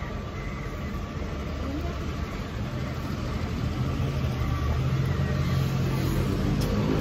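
A motor vehicle's engine running close by, a steady low hum that grows louder over the second half.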